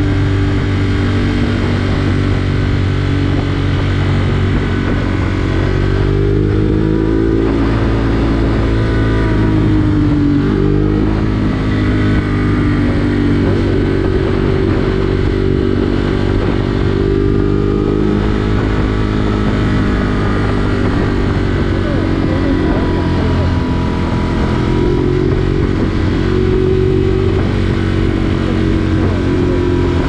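Vehicle engine running on the move, its pitch slowly rising and falling several times as the speed changes.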